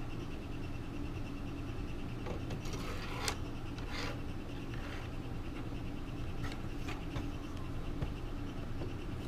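Light scrapes and clicks of hands working linear bearing blocks on a 3D printer's smooth steel rods. The handling noises come in a cluster over a few seconds, the sharpest a little over three seconds in, above a steady low hum.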